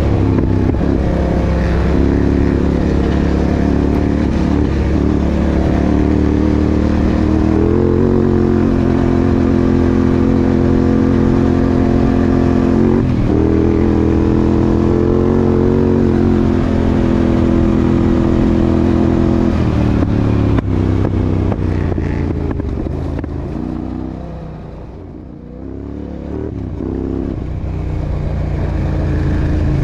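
Sport ATV engine running as the quad is ridden. The engine note steps up about a quarter of the way in and holds. About two-thirds through it drops and fades as the rider eases off, then builds again near the end.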